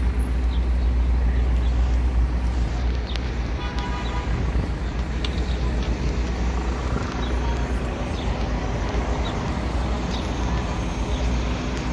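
Street traffic dominated by a steady low rumble of idling bus engines, with a brief vehicle horn toot about four seconds in and people's voices around.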